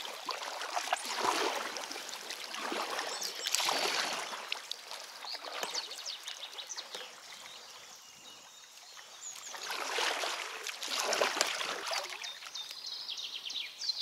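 Kayak paddle strokes: the blades dip and pull through the river water with splashing and dripping, in swells of a second or so each. The strokes pause for a few seconds in the middle.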